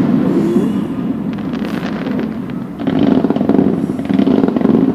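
Fireworks going off in a dense, continuous crackle with a low rumble, growing louder again about three seconds in.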